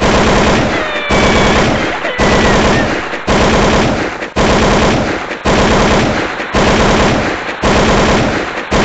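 Machine-gun fire sound effect: rapid automatic bursts, each starting sharply and fading, restarting about once a second over and over.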